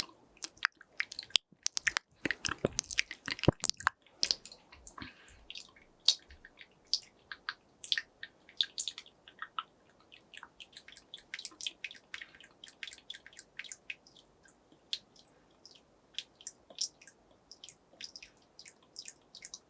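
Close-miked wet mouth sounds: quick tongue clicks and lip smacks. They come thick and fast for the first few seconds, then continue as a steady stream of separate sharp wet clicks.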